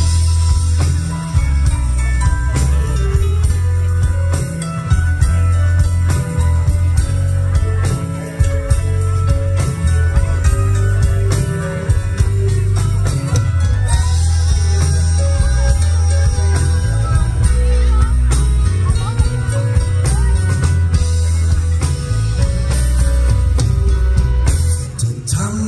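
Live rock band playing an instrumental passage, loud: a drum kit keeping a steady beat over heavy bass, with electric guitar and keyboard.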